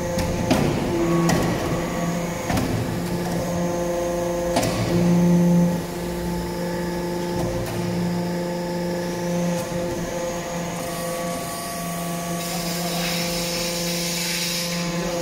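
Hydraulic metal-chip briquetting press running: a steady hydraulic power-unit hum that swells about five seconds in and drops suddenly near six seconds as the press cycles. A few sharp metallic clicks come in the first five seconds.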